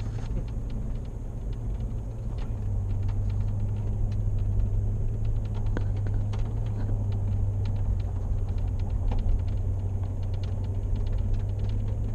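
Low, steady drone of a Toyota Tundra pickup driving, heard inside the cab, growing a little louder about two and a half seconds in. Many small irregular clicks and ticks run through it.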